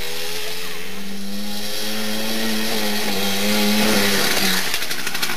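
Suzuki JR50 mini dirt bike's small single-cylinder two-stroke engine running under way, its pitch wavering as the throttle is worked. It swells a little about four seconds in, then fades into a rougher, choppier noise near the end.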